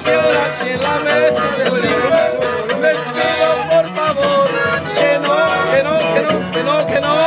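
A song playing, with a man singing in Spanish over a sustained, reedy instrumental accompaniment.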